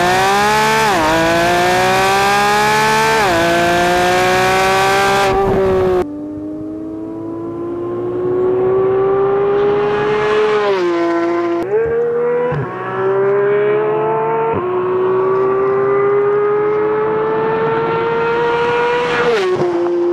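Porsche 991 GT3's flat-six engine through an Evolution MotorSports stainless exhaust and headers, accelerating hard through quick upshifts: the exhaust note climbs, drops at each shift and climbs again. It is first heard close at the exhaust tips, then, after a sudden change about six seconds in, from the roadside as the car drives past and its pitch bends down going by, before more rising pulls with shifts.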